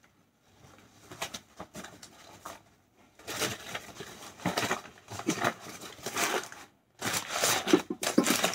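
Crinkly wrapping rustled and crumpled by hand as an item is unwrapped. Faint at first, it grows louder and busier from about three seconds in, with a brief pause near the end.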